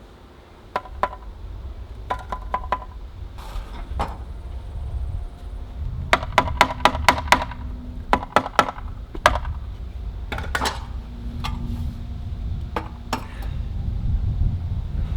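Steel brick trowel tapping bricks down into mortar and scraping: a run of sharp ringing clinks, densest from about six to eleven seconds in, over a steady low rumble.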